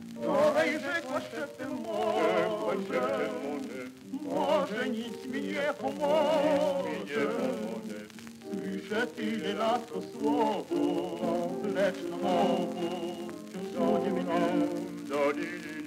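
Male vocal ensemble singing in several-part harmony with heavy vibrato, to piano accompaniment, heard from a 1930 shellac 78 rpm record.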